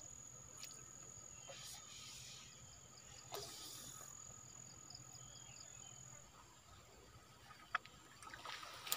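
Quiet ambience with a faint, steady, high-pitched insect trill that stops about six seconds in, and a few soft clicks.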